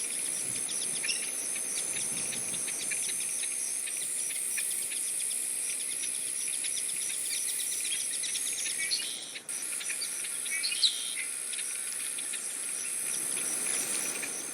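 A flock of black-bellied whistling ducks calling: many short, high whistles in quick, overlapping series, over a steady high-pitched insect drone.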